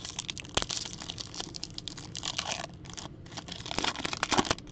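Topps Chrome Update trading-card pack wrapper being torn open and crinkled by hand: a dense run of crackles and rustles, with a short lull partway through.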